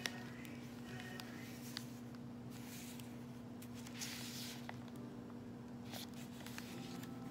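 Paper rustling and swishing in short spells, with a few light clicks, as the pages and tucked papers of a handmade junk journal are handled, over a steady low hum.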